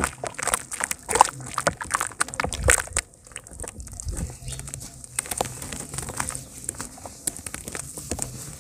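Hands crushing and squeezing balls of cement in water and wet cement paste, with crumbling crackles and wet squelching that are busiest and loudest in the first three seconds.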